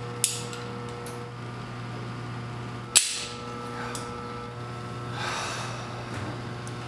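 Revolver clicking: a sharp metallic click about a quarter second in and a louder one about three seconds in, over a steady low hum. A breath follows near five seconds.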